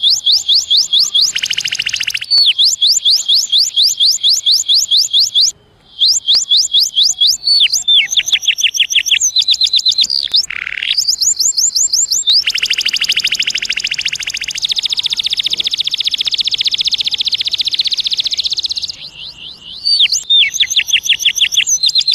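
Domestic canary singing a continuous song of rapid repeated high notes. It moves through fast runs of falling whistles and buzzy rolls, with a long rolling trill from about twelve to nineteen seconds in and a brief break about five and a half seconds in.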